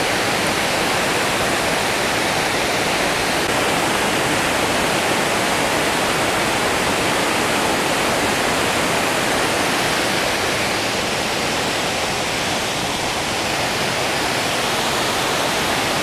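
Water pouring over a waterfall spillway: a steady, loud, unbroken rush of falling water.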